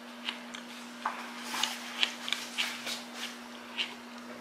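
Scattered small clicks and rubbing sounds of someone eating and handling things at a table, thickest around the middle, over a steady low hum.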